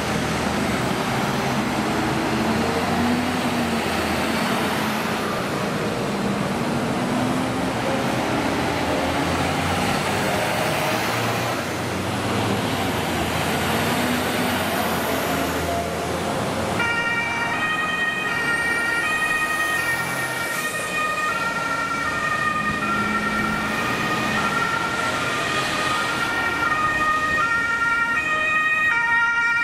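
Fire service vehicles driving past, their engines and tyres making a steady road noise with engine pitch rising and falling as they pass. Just over halfway through, a German two-tone siren (Martinshorn) starts and keeps alternating evenly between a high and a low note.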